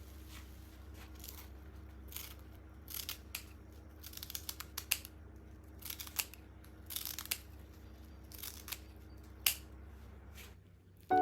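A dozen or so short, crisp rasping strokes at irregular intervals, like kitchen utensils or scissors working, over a steady low hum.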